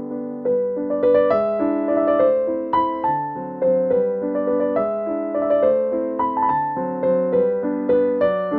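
Background piano music, a gentle melody of struck notes that ring and fade, in a steady pattern.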